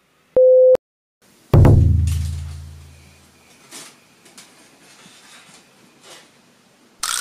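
Edited-in sound effects: a short steady beep, then a deep boom that dies away over about two seconds. A burst of hissy noise starts near the end.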